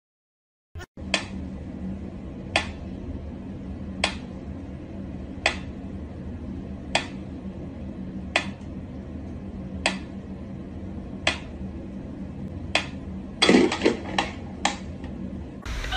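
Wind-up pyramid metronome ticking slowly and evenly, one sharp click about every one and a half seconds, starting about a second in. Near the end a quick flurry of clattering knocks breaks in, the loudest sounds in the clip, as the cat bolts back from it on the wooden floor.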